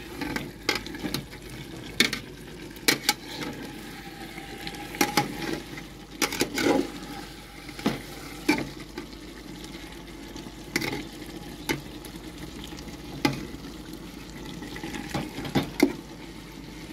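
Flat metal spatula stirring and scraping chicken curry in an aluminium pot, with irregular clinks against the pot's side over a steady sizzle of the simmering curry.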